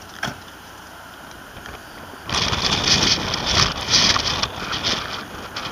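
Footsteps crunching on icy, packed snow, loud and uneven, starting about two seconds in, after a short knock near the start.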